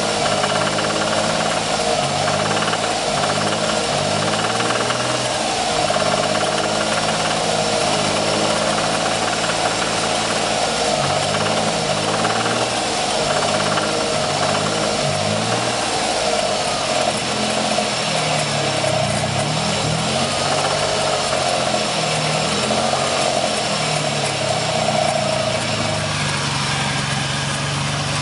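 1994 Ford Taurus SHO's Yamaha-built V6 running with a rapid knock throughout. The revs rise and fall several times, then settle to a steady idle near the end. The knock developed about 500 miles after a timing-belt change, and its cause is unknown.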